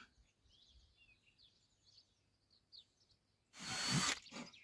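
Faint bird chirps, then about three and a half seconds in a cordless drill runs briefly, driving a screw into a timber strap, followed by a second short burst.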